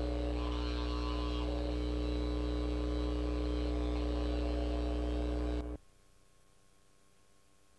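Loud, steady electrical mains hum, with a few faint guitar notes in the first second or so. About six seconds in it cuts off suddenly to near silence.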